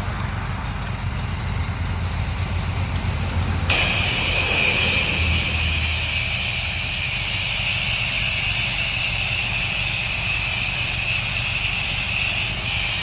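Pressure-washing rig's engine running steadily; about four seconds in the spray wand opens with a steady high hiss as cleaning chemical is sprayed onto stone.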